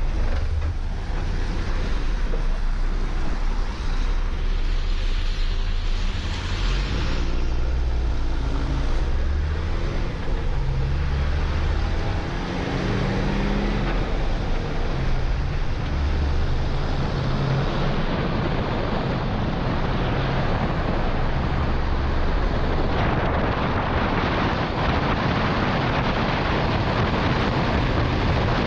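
MAN LE280B 4x4 truck's diesel engine running on the road, its pitch stepping up and down through gear changes, with wind buffeting the roof-mounted microphone and tyres hissing on the wet road. The wind and road noise grow louder in the second half as the truck picks up speed.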